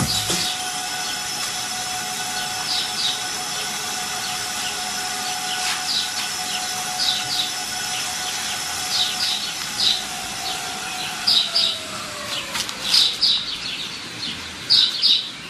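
Birds chirping in short paired chirps, repeated every second or two and more often toward the end, over a steady held tone that slides down in pitch about eleven to thirteen seconds in.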